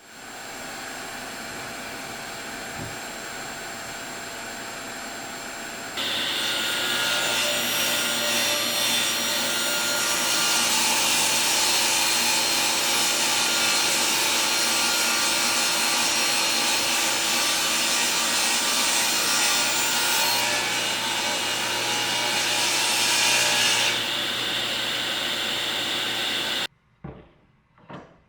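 A woodworking power saw running steadily, quieter at first and then louder from about six seconds in, as it cuts through walnut. It stops abruptly near the end, followed by a couple of knocks.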